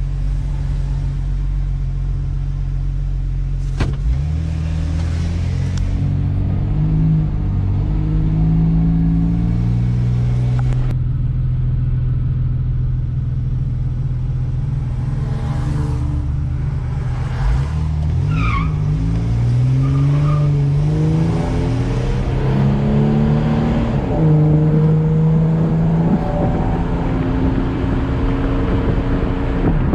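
1985 Chevy S-10 pickup's 2.8 V6 engine pulling under a hard test drive. It climbs in pitch as the truck accelerates and drops back at each gear change, several times over.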